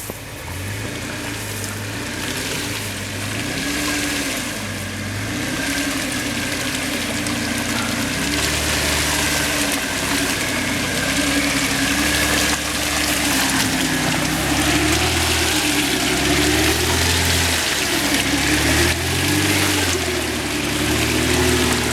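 An SUV engine revving up and down over and over while driving through deep mud, with water and mud splashing and tyres churning. The revving grows louder and heavier about eight seconds in.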